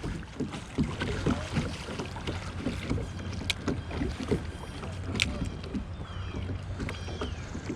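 Water splashing and knocking around a kayak on a moving river, with irregular short splashes over a steady low rumble of flowing water and wind on the microphone. Two sharp clicks come in the middle.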